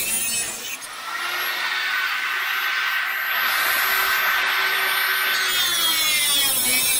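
Small corded angle grinder with an abrasive cut-off disc cutting a metal rail, grinding loudly at first. About a second in it is lifted off the metal and runs free with a steady whine. Near the end it bites back into the cut with the rough grinding sound again.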